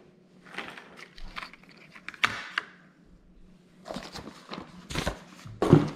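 Handling noise: scattered clicks, taps and short rustles, with a sharper knock near the end.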